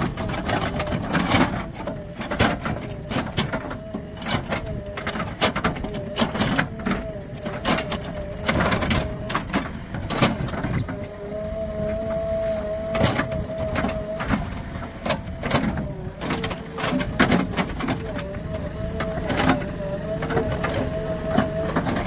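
JCB 3DX Plus backhoe loader at work: its diesel engine running under load with a steady whine that drops out twice for a few seconds, and frequent irregular clanks and knocks from the machine and its bucket working soil and gravel.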